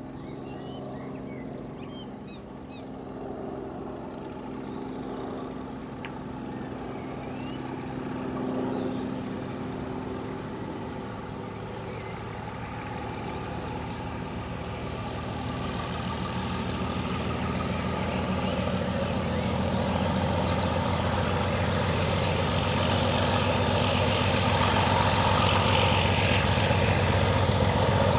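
Heritage diesel locomotive working under power as it approaches, its engine note holding a steady pitch and growing steadily louder.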